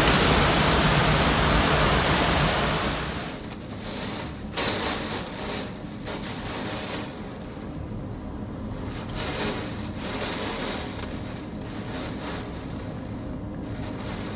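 Hurricane-force wind and rain rushing against the microphone, loud and steady for the first three seconds, then dropping to a lower level with gusts swelling and fading every few seconds, and one brief sharp jump about four and a half seconds in.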